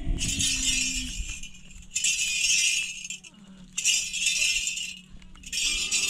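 Jingling in four short bursts, about one every two seconds, over a faint steady low hum.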